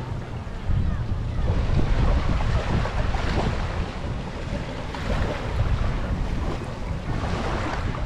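Wind buffeting the microphone with a heavy low rumble, over the rushing wash of surf on a sandy beach.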